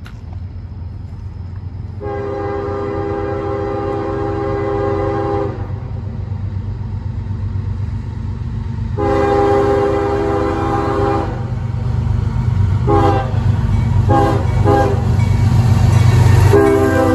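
CSX diesel locomotive approaching with its multi-chime air horn sounding as a horn salute: two long blasts, a few quick short toots, then another long blast starting near the end. The diesel engine rumble underneath grows louder as the train draws near.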